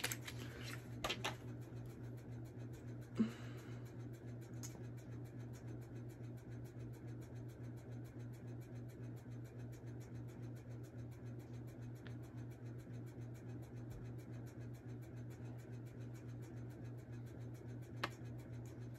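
Faint steady low hum of background noise, with a few soft clicks and scrapes as a lip gloss tube is opened and handled, mostly in the first few seconds and once near the end.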